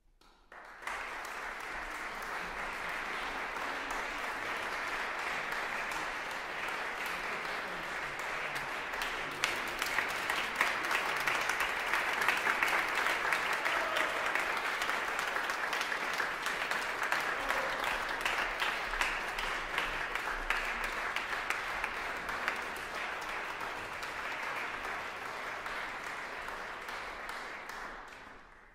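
Applause from the audience and the choir. It starts abruptly about a second in, swells in the middle and dies away near the end.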